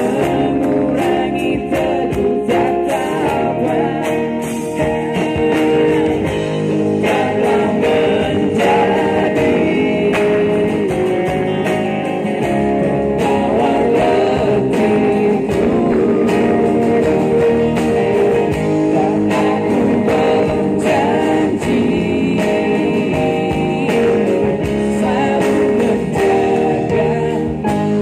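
Live pop band playing through a PA: male voices singing over electric and acoustic guitars, drums and keyboard, without a break.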